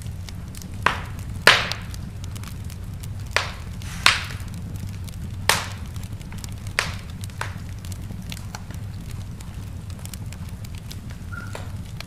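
Wood fire crackling in a fireplace: sharp pops every second or so over a steady low rumble, the loudest about a second and a half in, thinning out over the last few seconds.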